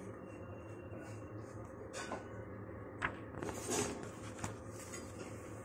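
Paper pages of a graphic novel being turned by hand: about four short, soft page rustles, the longest a little under four seconds in, over a steady low hum.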